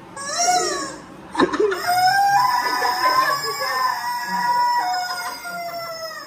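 A rooster crowing loudly: a short call, then one long drawn-out crow that steps up, holds for several seconds and drops near the end.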